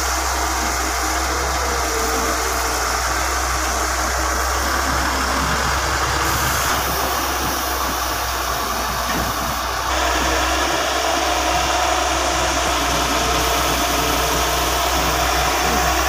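Heavy diesel engines running steadily with a low rumble; the sound steps up slightly about ten seconds in.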